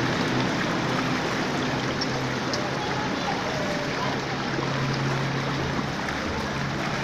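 Floodwater running along a street, an even rushing hiss of moving water. A low engine hum sits under it and grows stronger for a couple of seconds past the middle.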